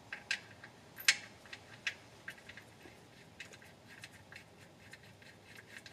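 Faint light clicks and ticks of an oil drain plug being turned in by hand into the oil pan, with one sharper click about a second in.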